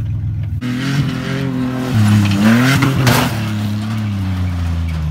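Pickup truck engine revving hard as the truck accelerates along a dirt track. The pitch climbs for about a second, then falls back and holds steady.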